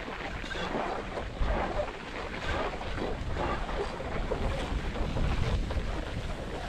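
Wind buffeting the camera microphone: a steady rushing hiss over an uneven low rumble.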